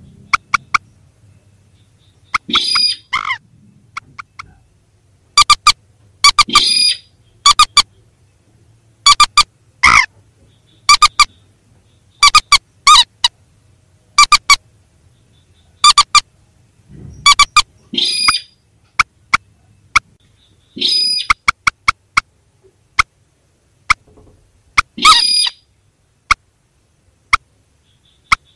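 Recorded calls of mandar and sintar rails played as a trapping lure: loud, sharp, short pitched notes in irregular runs, broken several times by longer, harsher calls.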